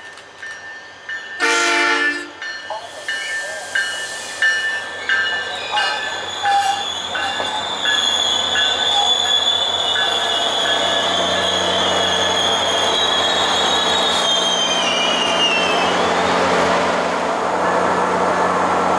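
SunRail commuter train arriving: a short horn blast about a second and a half in, then a bell ringing in steady strokes. A high wheel and brake squeal follows as the train slows, holding and then falling away as it comes to a stop, over the steady hum of the diesel locomotive.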